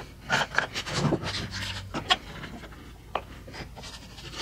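One-handed trigger bar clamps being squeezed tight onto a glued-up wooden table leg: a run of irregular clicks and knocks, with clamp jaws and pads rubbing on the wood.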